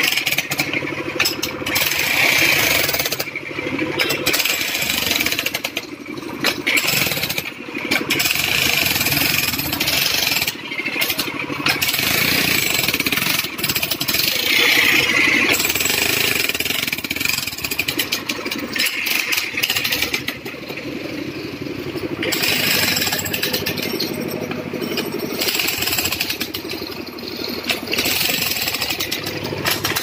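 Corded electric demolition hammer chiselling into asphalt: rapid hammering in long runs broken by a few short pauses.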